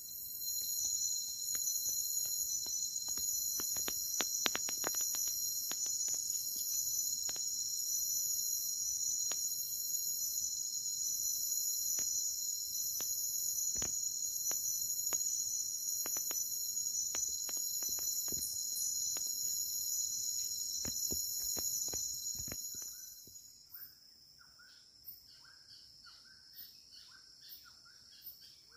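Loud, steady, high-pitched insect chorus with a slow pulsing in its highest layer, stopping suddenly about three-quarters of the way through. Sharp scattered clicks come throughout, and after the chorus stops, fainter short chirps repeat.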